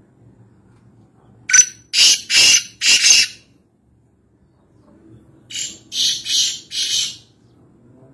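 Black francolin (Kala Teetar) calling: two harsh, scratchy phrases of four notes each, a couple of seconds apart.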